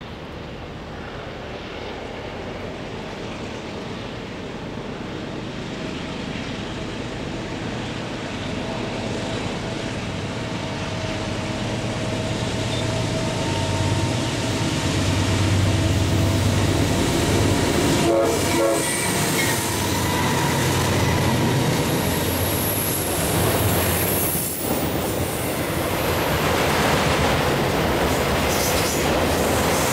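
Diesel-hauled freight train approaching and growing steadily louder. The locomotives pass about 14 to 18 seconds in with a heavy low engine drone, followed by the steady rolling clatter of autorack cars' wheels on the rails.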